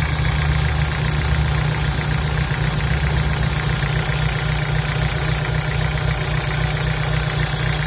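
VW Gol G4 engine idling, heard from below the engine, with a rapid, even metallic knock over the steady idle, like iron striking or a pulley with play. A mechanic took it for piston slap; the owner thinks it comes from the bottom end of the engine.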